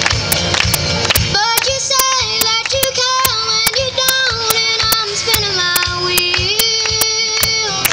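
A young girl singing solo over a recorded country backing track with a steady beat, played through the stage PA. She comes in about one and a half seconds in, holding long notes.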